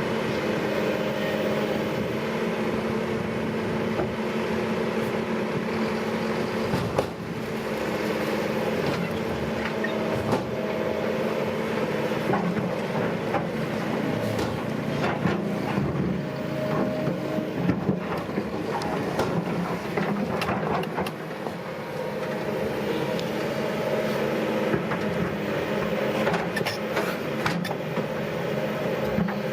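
Diesel engine of heavy earthmoving machinery (bulldozer or excavator) running steadily under work, with frequent short metallic clicks and knocks over it.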